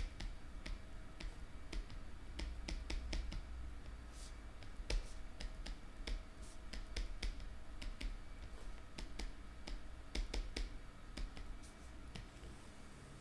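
Stylus tip tapping and clicking on a tablet screen during handwriting: a faint, irregular run of short clicks over a low steady hum.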